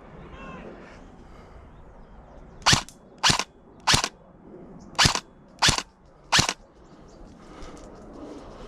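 Airsoft gun fired six single shots, loud and sharp, in two quick groups of three about two-thirds of a second apart, with a short pause between the groups.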